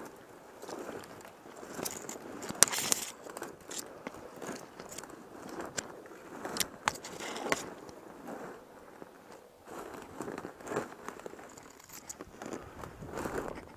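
Dry weeds and brush stalks crackling and rustling against clothing and the camera as someone pushes through on foot, with footsteps crunching and irregular sharp snaps of twigs, the loudest about two and a half seconds in.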